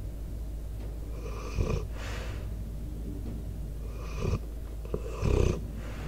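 A sleeping American Staffordshire Terrier/pit bull snoring close to the microphone: three snoring breaths, about a second in, around four seconds in and near the end. A steady low hum runs underneath.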